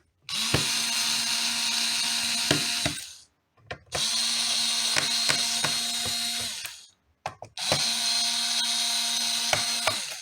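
Small cordless electric screwdriver running in three bursts of about three seconds each, backing out the laptop's bottom-case screws. Each burst is a steady motor whine with a few clicks.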